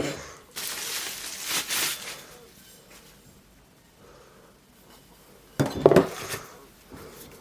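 Garden hand tools being handled: a rustle for a couple of seconds, then a quick cluster of metal clinks and knocks about six seconds in.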